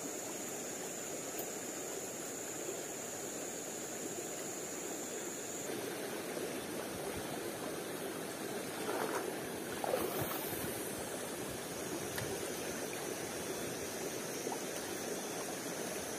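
A forest river or stream running steadily, with a thin high steady tone over it that stops about six seconds in and a brief louder disturbance about nine to ten seconds in.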